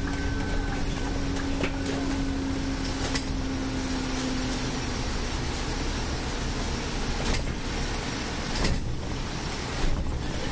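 Scania Citywide city bus on the move, heard from the driver's seat: a steady low engine and road rumble, with a steady whine that fades out about halfway through and a few sharp knocks from the cabin.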